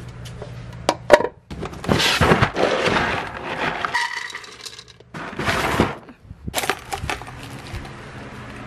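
Dry dog kibble poured from a scoop into a dog bowl, rattling and clinking against the bowl in two pours, the second shorter, with a few sharp knocks before and after.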